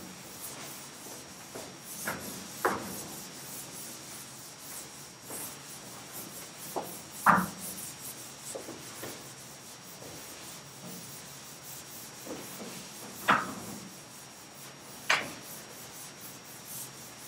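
A chalkboard being wiped with a hand-held eraser: a steady rubbing scrape, broken by about five short sharp knocks, the loudest about seven seconds in.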